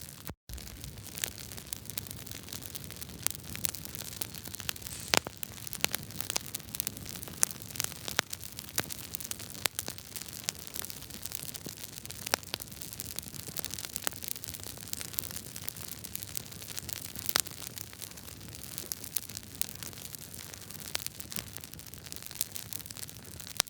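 Wood fire crackling in a fireplace: a steady hiss with many sharp, irregular pops and snaps. The sound cuts out for a split second about half a second in.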